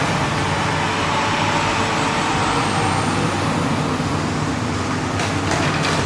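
Steady hum of a demolition excavator's diesel engine running, mixed with passing street traffic and the hiss of steady rain on wet pavement.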